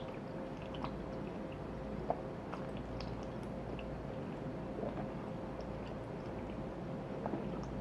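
Steady room noise with a faint constant hum and scattered small clicks and ticks, the clearest about two seconds in.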